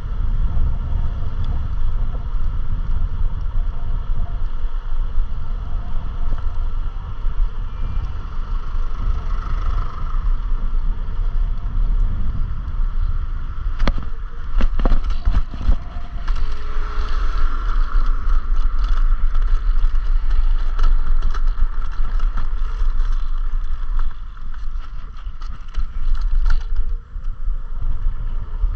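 Electric scooter ride heard through a chest-mounted action camera: a steady low rumble of wind and road noise with a faint steady whine above it, and a run of sharp clicks and knocks about halfway through.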